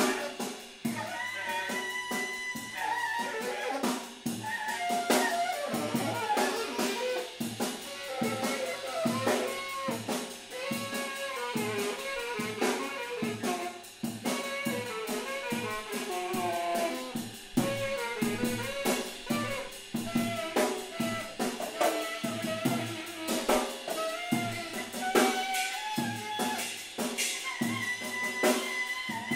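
Live jazz-style band playing: a busy drum kit under a wandering, sliding melody line on a horn or other lead instrument.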